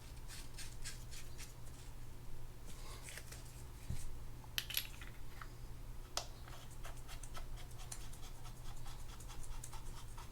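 Light, irregular ticking and scratching of small metal spinning-reel parts being handled and greased, with a few sharper clicks around the middle.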